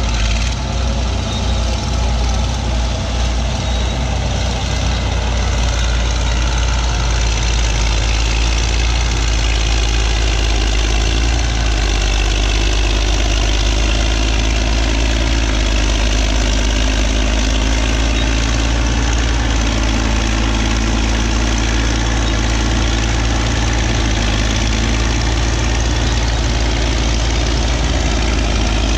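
Caterpillar D8 bulldozer's diesel engine running steadily under load as its blade pushes a pile of dirt.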